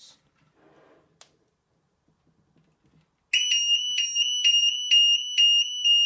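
Burglar-alarm sound bomb in a vented bell box switching on about three seconds in after a faint click: a loud, shrill high-pitched tone pulsing about three times a second.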